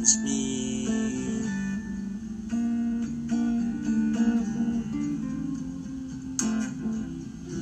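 Guitar playing in F major: held and picked notes that step from one pitch to the next, with a strummed chord about six and a half seconds in.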